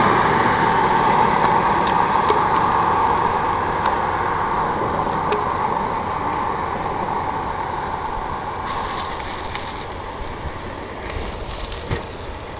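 A car passing on the road, its tyre and road noise loudest at first and fading away over several seconds, with a few faint clicks and a light thump near the end.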